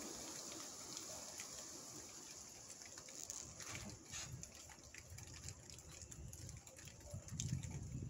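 Wind-driven rain in trees: a faint steady hiss with scattered drips and ticks. Near the end, wind gusts buffet the microphone with a low rumble.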